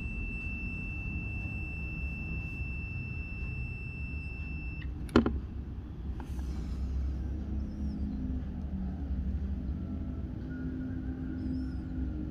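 A multimeter's continuity tester gives a steady high beep for about five seconds, cut off by a sharp click. A low steady rumble runs underneath.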